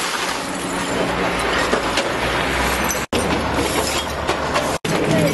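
Masses of broken glass beer bottles being scraped and shovelled across asphalt, with a dense clinking and grinding over the steady running of a front loader's engine. The sound breaks off briefly twice.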